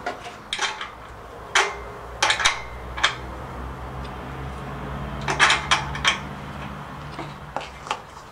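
Metal tools clinking against bolts and a belt pulley as parts are fitted and tightened: about a dozen sharp, irregular clinks, the loudest about a second and a half in and in a quick cluster around five and a half seconds.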